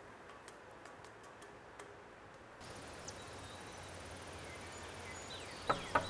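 Faint night ambience with a high, fast insect trill, then two sharp knocks near the end.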